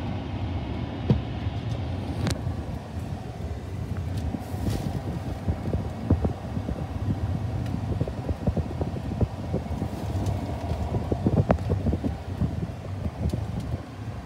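Steady low vehicle rumble heard from inside a pickup truck's cab, with scattered small clicks and knocks through it.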